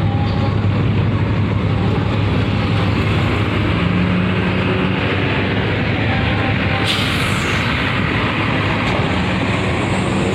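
Large tour buses rolling past with a steady engine rumble and heavy wind noise on the microphone; a sudden hiss breaks in about seven seconds in.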